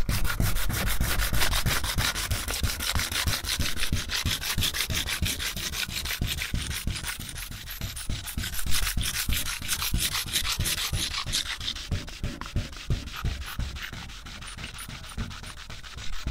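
Sandpaper rubbed back and forth by hand over the gloss-painted metal roof of a van, in quick scraping strokes about four or five a second, easing off over the last few seconds. The gloss paint is being rubbed back to key the surface so sealant will adhere.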